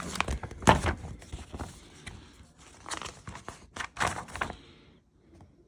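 Irregular knocks and rustling from things being handled, stopping about a second before the end.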